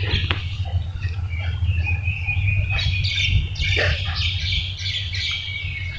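Several birds chirping and calling, busiest in the second half, over a steady low hum.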